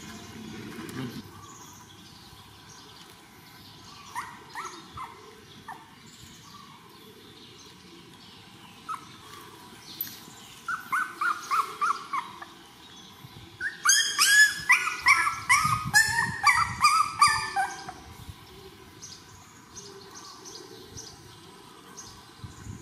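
Young puppies whimpering: short, high-pitched, falling whines. A few come singly, then a dense run of many overlapping cries lasts about four seconds.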